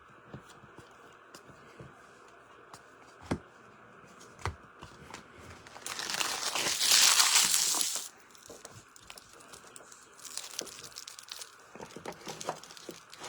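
Foil wrapper of a pack of trading cards being torn open: a loud crinkling tear lasting about two seconds midway, with a few light clicks before it and softer crinkling afterwards.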